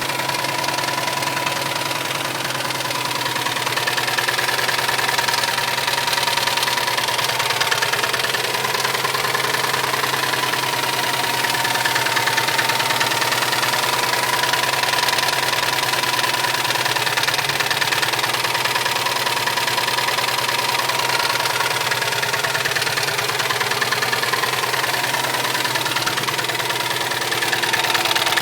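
Subaru STi's EJ257 turbocharged 2.5-litre flat-four running steadily with a rapid, continuous knock from inside the engine. The knock is the sign of a melted piston.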